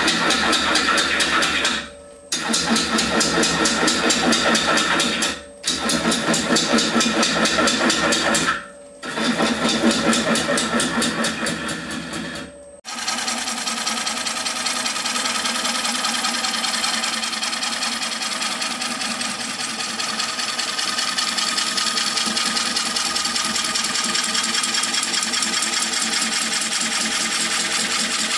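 Bowl gouge cutting into a large wooden bowl blank spinning on a lathe: a steady, dense rasping hiss of shavings peeling off, with the lathe's hum under it. It cuts out briefly four times in the first half, then runs unbroken.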